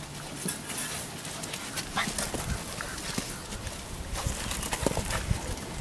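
Seven-week-old Labrador Retriever puppies playing on dry ground: scattered crackling and patter of paws scuffling through dry twigs and grass. A brief high puppy squeak comes about two seconds in.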